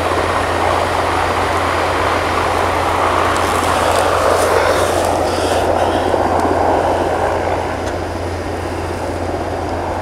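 Engine of a ZIL-4906 'Blue Bird' six-wheel all-terrain search-and-evacuation vehicle running steadily as it drives over snow, growing louder in the middle of the stretch and easing a little near the end.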